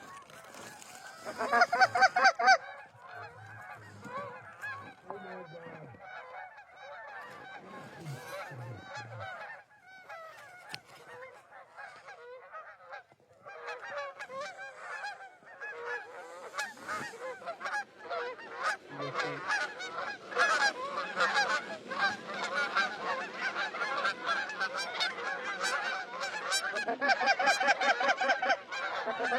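Geese honking, many calls overlapping: loud for a moment near the start, thinning out through the middle, then building again over the last half.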